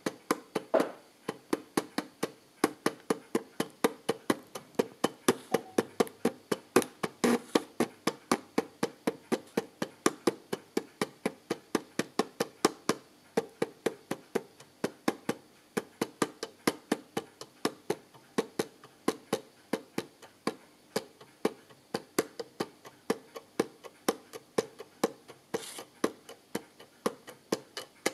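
Commodore VC-1520 four-colour pen plotter drawing a curve: its stepper-driven paper roller and pen carriage click in a steady, rapid train of small ticks, about four a second.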